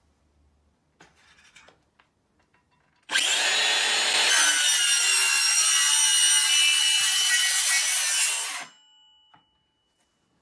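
Makita cordless brushless circular saw starting suddenly about three seconds in and running for about five and a half seconds with a high whine as it cuts through a wooden board. It stops abruptly near the end, leaving a faint fading tone.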